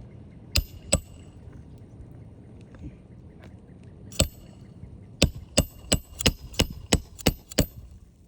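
Hammer striking a Roof Snake shingle-repair tool to drive a roofing nail under a shingle, each blow with a metallic ring: two blows, a single blow, then a quick run of about eight blows, some three a second, near the end.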